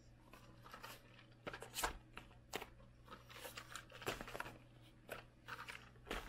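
Small cardboard boxes being handled and set down onto a towel: scattered light knocks, taps and rustles at irregular moments.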